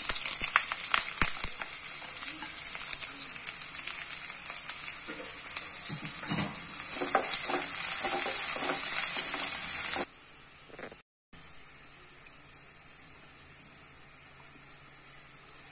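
Sliced shallots sizzling in hot coconut oil with mustard seeds and curry leaves in a nonstick pan, stirred and scraped with a wooden spatula: frying the tempering for the curry. About ten seconds in, the sound cuts out briefly and returns as a quieter, steady sizzle.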